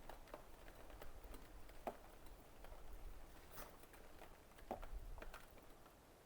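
A few faint, scattered light taps and clicks, irregular and spaced out, over quiet room tone.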